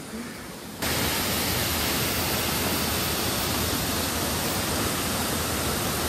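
Waterfall rushing: a steady, even hiss of falling water that jumps suddenly louder about a second in and then holds steady.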